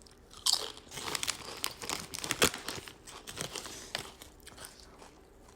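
A food wrapper being handled and crumpled, a run of irregular crinkles and crackles that thins out near the end.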